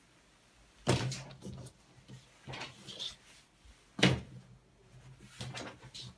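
Cotton canvas tote bag being handled on a table: flipped over, laid flat and folded up, with fabric rustling and two sharper thumps, about a second in and about four seconds in.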